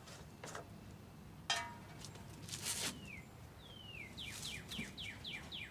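A songbird calling: two falling whistles, then a quick run of about six falling chirps in the second half. Earlier, about a second and a half in, a sharp clank with a brief metallic ring, the loudest sound, followed by some rustling handling noise.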